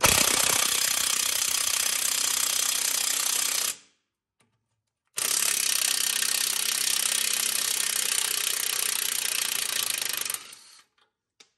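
Snap-on cordless impact wrench hammering out the 21 mm bolts that hold a 2006 Ford Explorer's rear knuckle to the lower control arm. It runs in two long bursts, about four seconds and then about five, with a short pause between.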